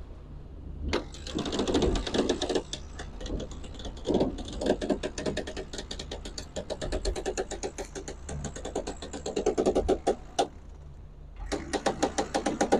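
Rapid mechanical clicking in bursts, many clicks a second, stopping about ten seconds in and starting again near the end, over a steady low hum.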